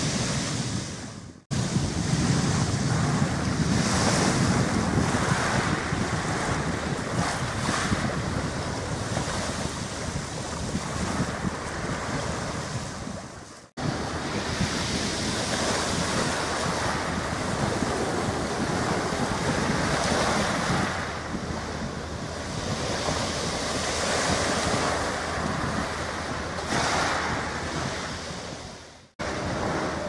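Wind buffeting the microphone over the wash of small waves at the shore, a steady noisy rumble. The sound briefly dips out three times, about a second and a half in, near the middle and near the end.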